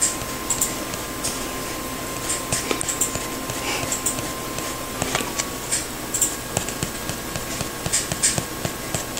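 Small, light, irregular ticks of a kitten's paws and claws on a wooden floor as it walks slowly, over a steady hiss and a thin constant tone.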